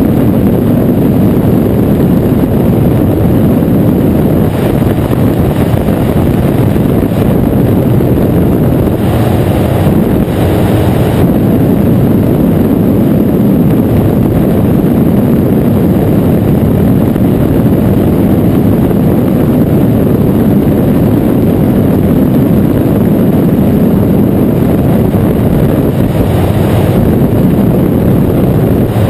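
Flex-wing microlight in flight: the steady drone of its engine mixed with heavy wind rush over the microphone.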